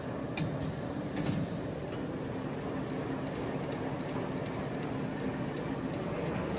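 Automatic napkin production and packing line running at a steady speed of about 1000 sheets a minute: a steady machine hum with a few faint clicks near the start.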